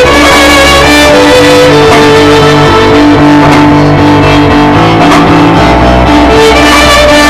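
Music: plucked guitar over sustained notes and a bass line, loud and continuous.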